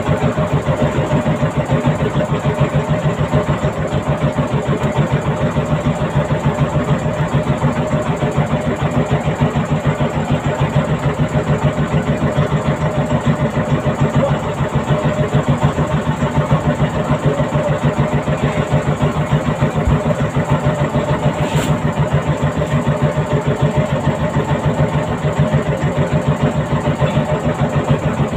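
Fishing boat's inboard engine running steadily, with a rapid, even thumping beat that does not change.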